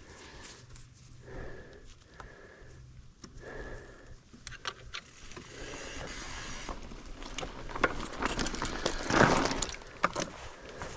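Metallic clicks, jangles and scrapes from handling a broken mountain-bike pedal and its parts, louder about nine seconds in, with soft breathing.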